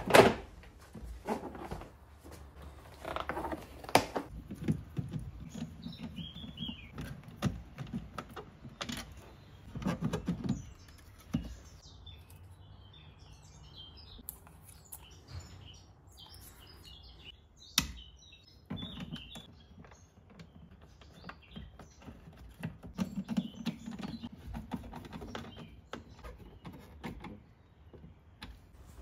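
Hands working on a car door's interior: scattered sharp plastic clicks and knocks with handling noise between them as the door trim panel comes off and a door speaker is taken out and fitted. The loudest knock comes right at the start.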